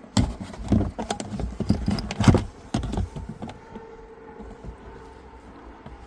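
Jack kit tools being put back into their storage compartment, with a run of knocks and clatters over the first three seconds, the loudest a little past two seconds in, then quieter handling.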